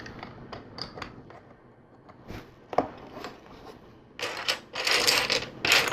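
LEGO plastic pieces clicking as they are handled and pressed into place, then a dense clatter of loose plastic bricks being rummaged through from about four seconds in.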